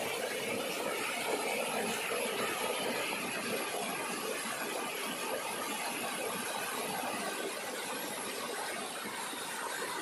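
Small waterfall: water rushing and splashing down over rocks in a steady, unbroken rush.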